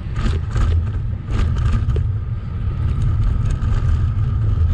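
Motorcycle engine running at low road speed with a steady low rumble. In the first two seconds come four short clatters as the tyres roll over the railroad crossing's rails.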